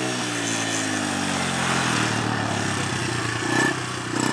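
Small Suzuki youth quad (ATV) engine running under a child rider. Its pitch drops over the first second as the throttle eases, then it runs fairly steadily. A brief louder knock comes about three and a half seconds in.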